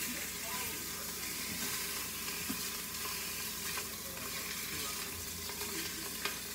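Chunks of beef sizzling in hot olive oil in the inner pot of an Instant Pot as they are seared, a steady frying hiss. A few light clicks come from metal tongs turning the meat.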